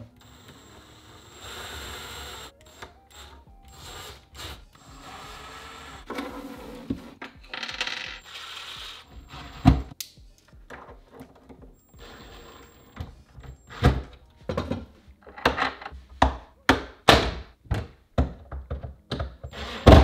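Knocks, taps and scraping of hand work inside a wooden kitchen cabinet, with one loud knock about halfway and a run of sharp knocks, about two a second, in the second half.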